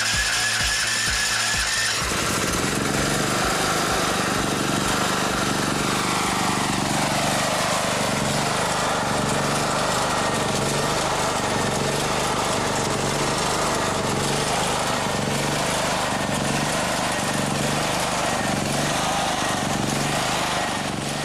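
Petrol generator engine running steadily after catching on its repaired electric starter, with its pitch rising as it comes up to speed at the start. Background music plays underneath.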